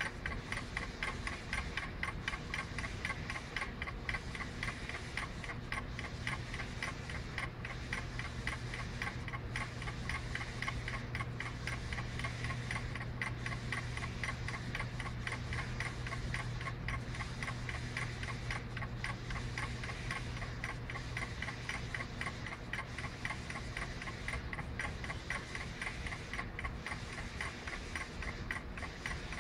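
Magnetic stirrer with a stir bar spinning in a beaker of wine, giving a rapid, even ticking over a steady low motor hum that weakens near the end.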